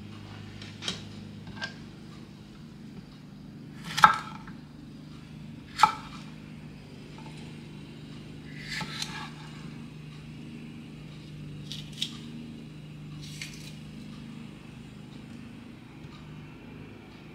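Kitchen knife slicing small sweet peppers on a wooden cutting board: scattered sharp taps of the blade against the board, with two louder knocks about four and six seconds in, over a low steady hum.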